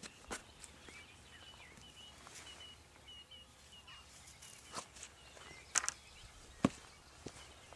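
Quiet dawn ambience with faint bird calls: a few short gliding calls, then a run of quick high chirps about two to three and a half seconds in. A handful of sharp clicks or taps is heard, the loudest a double click near the six-second mark.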